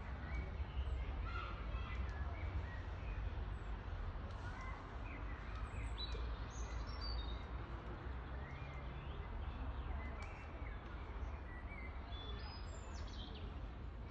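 Outdoor ambience of birds chirping and calling, with a few high falling whistled notes about six seconds in and again near the end, over a steady low rumble.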